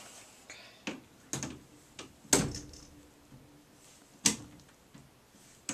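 Adjustable wrench clicking and knocking against a screw and the aluminum frame of an acrylic terrarium while a stubborn screw is worked into its fitting. There are several separate sharp knocks, the loudest a little over two seconds in and about four seconds in.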